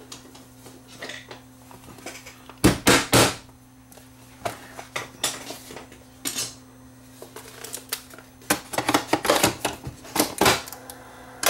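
Hard plastic clicks and knocks as an 8-track tape cartridge's shell is pressed shut, three sharp snaps close together a few seconds in, then a quick run of clicks as the cartridge is pushed into the player's slot near the end.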